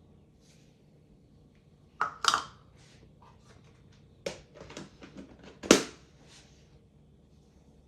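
Kitchen containers and utensils being handled, with a clatter about two seconds in, a run of smaller knocks and rustles, then one sharp knock.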